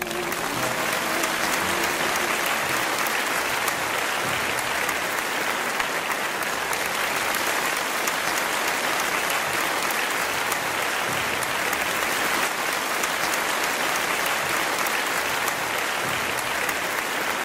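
Audience applauding, a dense steady clapping that starts all at once and cuts off abruptly at the end.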